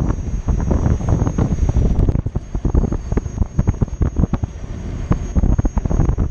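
Wind buffeting the microphone of a camera moving along with an electric unicycle, a heavy low rumble broken by irregular gusts and knocks from the road.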